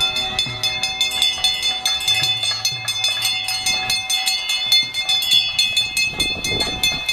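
Traditional procession music for a Bhuta Kola: high pipes holding long, steady notes over a continuous, fast, regular beat of drums and cymbals.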